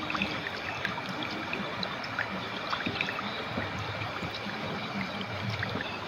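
River water flowing: a steady rush with many small gurgles and splashes.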